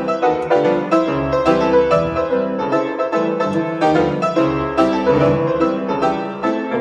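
Background piano music, with notes struck in a quick, even run over a changing bass line.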